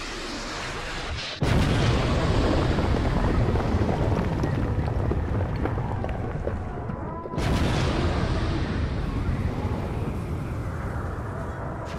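Two explosion sound effects, the first about a second and a half in and the second about six seconds later, each a sudden boom that rumbles on and fades slowly.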